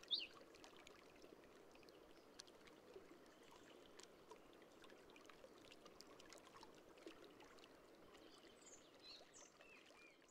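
Faint outdoor nature ambience: a low, steady background rush, with a few short, high birdsong chirps right at the start and again near the end.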